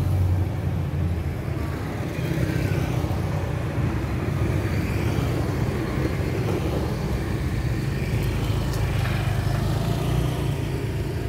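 Street traffic passing steadily, the continuous sound of car and motorcycle engines and tyres on the road.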